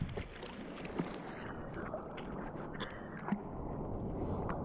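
Sea water sloshing and splashing against a waterproof action camera held at and under the surface, with scattered small splashes. From about a second and a half in the sound turns dull and muffled as the camera sits half under the water.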